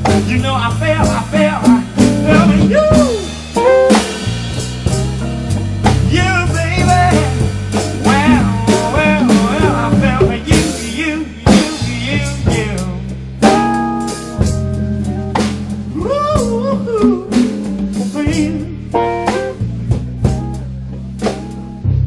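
Blues music with a drum kit, bass and guitar, its melody line bending up and down in pitch.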